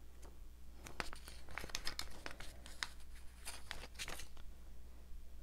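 Paper stickers being peeled off their backing sheet and pressed onto a paper page: a run of faint crinkles and light ticks, thickest in the middle and easing off near the end.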